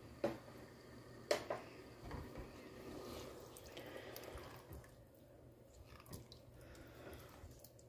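Silicone spatula stirring chicken thighs in watery tomato sauce in a pressure-cooker pot: faint wet squishing and sloshing, with two sharp clicks in the first second and a half.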